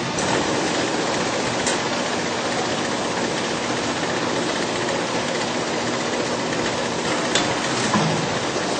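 All-Fill Model 1545 piston filling machine running as it fills plastic bottles on a conveyor: a steady mechanical noise, with a sharp click about two seconds in and another near the end.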